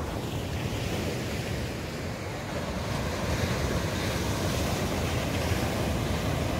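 Sea waves breaking on a sandy beach, a steady wash of surf, with wind rumbling on the microphone.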